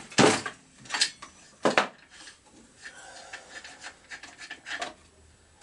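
Spark plug being unscrewed from a Chinese chainsaw with a plug wrench, metal and plastic rubbing and scraping: three sharp knocks in the first two seconds, then softer rubbing and light clicks.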